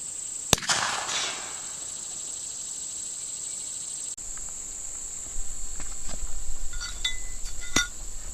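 A single gunshot about half a second in: a sharp crack with an echo trailing off over about a second. A few short clicks follow near the end.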